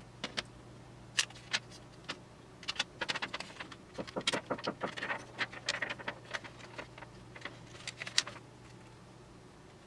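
Thin plastic keyboard membrane sheets and tape being handled: irregular crinkles and sharp clicks, thickest in a busy stretch through the middle, while key contact holes on the spacer sheet are taped over.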